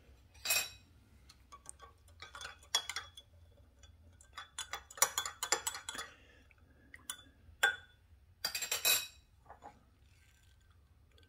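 Metal spoon stirring powdered creamer into coffee in a glass mug, clinking irregularly against the glass, stopping near the end.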